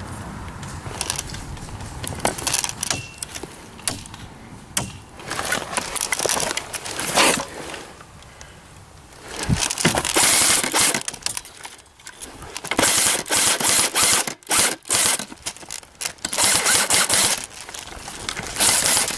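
Footsteps and gear of an airsoft player moving on foot over rough ground: irregular crunching, rustling and scraping, with scattered sharp clicks and rattles. It gets louder and busier about halfway through.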